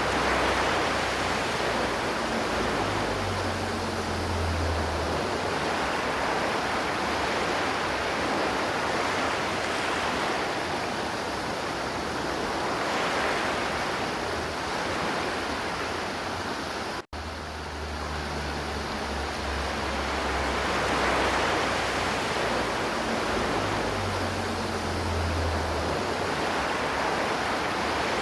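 River water flowing steadily, a continuous rush of water. It cuts out for an instant about 17 seconds in.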